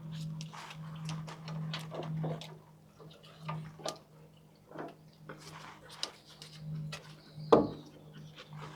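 Scattered clicks and taps of hand tools on brake parts as a front brake caliper is taken off, with one louder knock about seven and a half seconds in, over a steady low hum.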